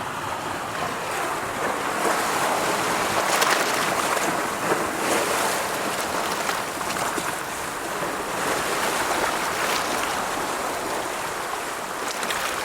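Steady rush of moving water, swelling a little about three to five seconds in.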